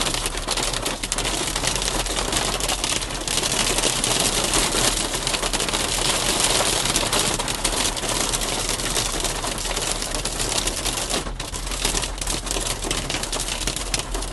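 Hail pelting a car's roof and windshield, heard from inside the car: a dense, continuous clatter of hailstone hits.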